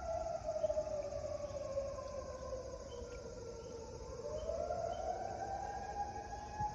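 Sterling M-10 electromechanical fire siren wailing. Its pitch slides steadily down for about four seconds, then winds back up and holds high near the end.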